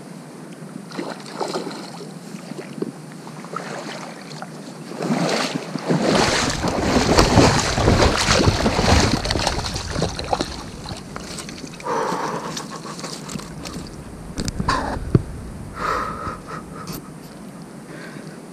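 Water splashing and rushing as a hooked fish is drawn through shallow, rocky water and scooped into a landing net. The sound is loudest in the middle, with a few short splashes near the end.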